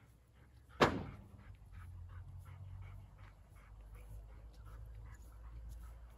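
A single sharp knock about a second in, then a dog panting in a quick, faint rhythm.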